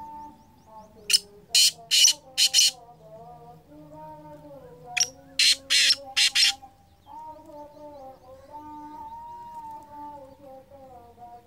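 Caged black francolin calling: two loud phrases of harsh notes, four notes about a second in and five notes about five seconds in.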